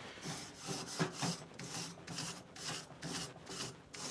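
Grill brush scrubbing a kamado's metal cooking grate back and forth, a rhythmic scrape at about three strokes a second, cleaning the heated grate.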